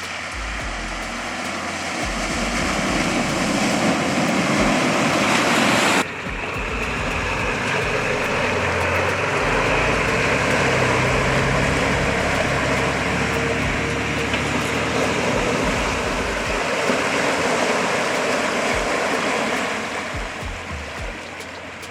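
Four-wheel-drive vehicle driving off-road with its engine running under a loud, steady rush of water and tyre noise, as in a creek crossing. The noise builds, cuts off sharply about six seconds in, then carries on steady and a little quieter.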